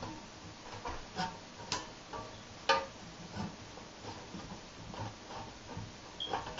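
Scattered light clicks and taps from handling the Dayton battery charger's sheet-metal case and switch, the loudest about two and a half seconds in.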